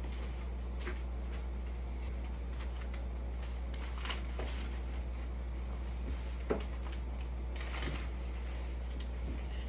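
Faint rustling and scattered light clicks of hands handling a paper instruction sheet and working on enclosure parts, over a steady low hum. One sharper knock comes about six and a half seconds in.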